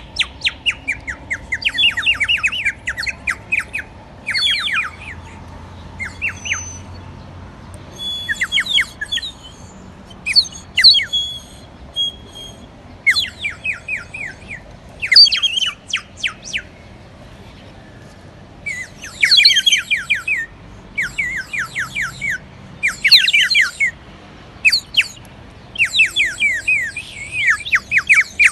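Clay bird water whistle blown with water inside, making a warbling bird-like trill: bursts of about a second of rapid, falling chirps, with short gaps between them.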